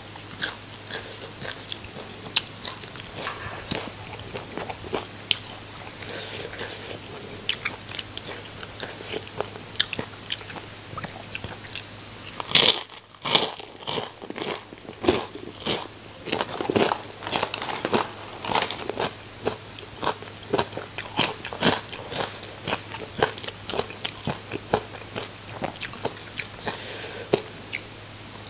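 Close-miked biting and crunchy chewing of crisp food, a steady run of crunches with one louder burst of crunching about halfway through.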